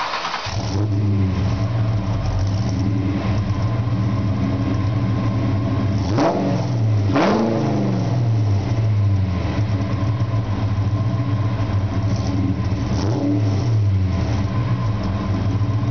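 1994 Ford Mustang SVT Cobra's 5.0-litre V8 exhaust, heard at the tailpipes: the engine catches right at the start and settles into a steady idle. Two quick revs come about six and seven seconds in, and a smaller blip near the end.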